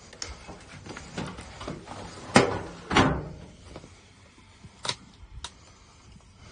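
A run of irregular knocks and bumps, the two loudest about two and a half and three seconds in, followed by two sharper knocks near the end.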